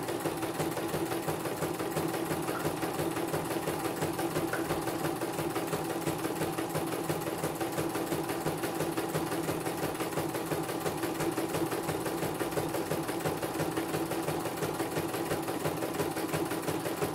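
CNY computerized embroidery machine stitching a design in its hoop, the needle running at a steady fast rate.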